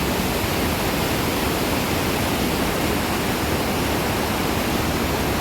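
The Ganga (Bhagirathi) river rushing through its rocky mountain bed, a steady, even roar of fast turbulent water throwing up misty spray.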